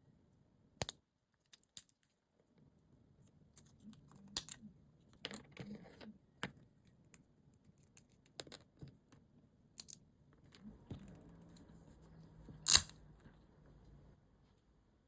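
Scattered light clicks and taps of small tools and parts being handled, with one sharper click near the end and a faint low hum under the last few seconds.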